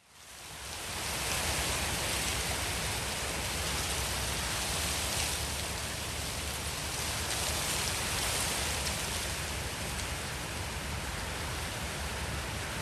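A steady rushing hiss with a fine speckle through it. It fades in over about a second and then holds even, the kind of sound made by rain or by wind in foliage.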